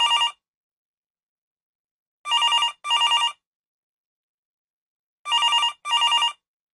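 Telephone ringing in a double-ring pattern: pairs of short trilling rings about three seconds apart, signalling an incoming call. The tail of one pair sounds at the start, then two full pairs follow.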